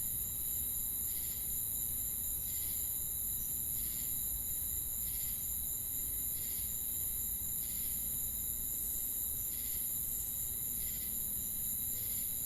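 Crickets and other insects chirping: a steady high trill, with a softer chirp repeating about every second and a half.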